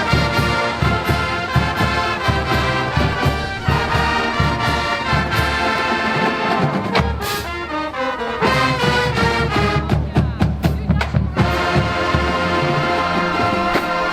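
College marching band playing a brass tune over a steady drum beat, with trumpets and trombones. Near the end the drums drop away and the horns hold a long chord.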